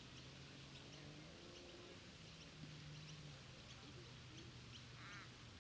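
Faint park ambience: the steady hiss of a water fountain under distant people's voices, with scattered bird chirps and a short call about five seconds in.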